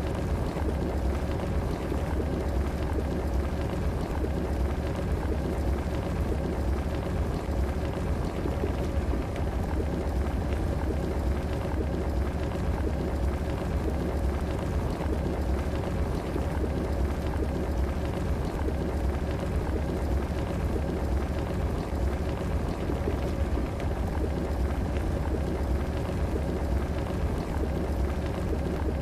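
Electric kettle heating water: steady bubbling and crackling over a deep low rumble, with a faint steady tone.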